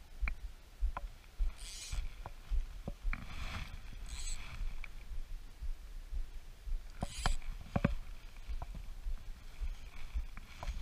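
Wind rumbling on the microphone, with scattered sharp clicks and a few short rustles as fly line is pulled and handled at the rod and reel, a cluster of clicks about seven seconds in.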